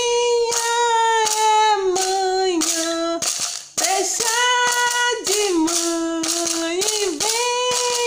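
A woman singing a children's good-morning song about farm animals in a bright voice, holding several long notes.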